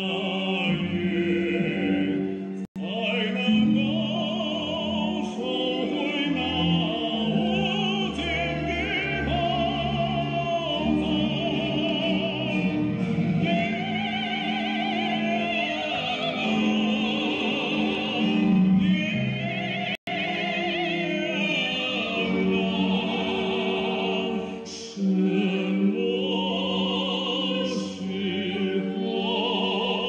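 Stage-musical song in Chinese: singing with wide vibrato over instrumental accompaniment, broken by two very short dropouts in the sound.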